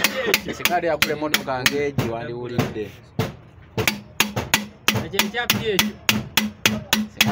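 Background music: a song with a fast, steady percussive beat, singing in roughly the first half, and a pulsing bass note in the second half.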